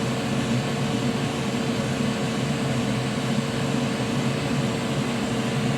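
A small electric blower motor running steadily, a constant whir with a steady hum tone.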